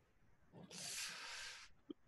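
A person breathing out near the microphone: one soft hiss about a second long. A single faint click follows near the end.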